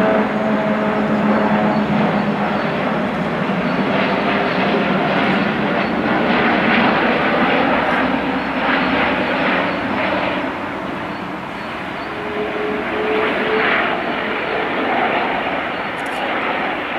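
Airbus A380 airliner on landing approach passing low overhead, its four Rolls-Royce Trent 900 turbofan engines making loud rushing jet noise. A low steady hum fades out in the first couple of seconds, and the noise eases off over the last several seconds as the aircraft moves away.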